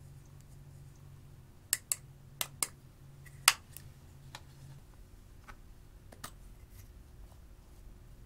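Hard clicking taps on a plastic makeup compact as crumbled pressed powder is knocked out of it onto slime: two quick pairs of taps, then one louder single tap, followed by a few fainter clicks.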